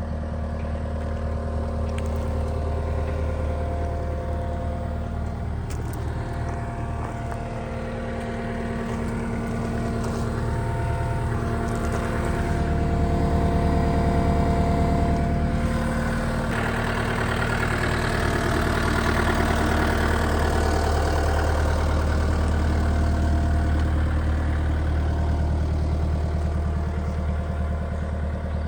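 Caterpillar C3.3B diesel engine of a Cat 259D3 compact track loader running, its note shifting in pitch and growing louder and harsher past the middle.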